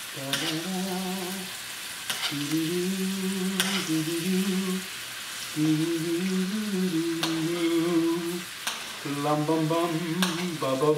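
A man humming a tune in long held notes over the steady sizzle of a ribeye steak frying in butter and oil. Several times a basting spoon clinks against the pan.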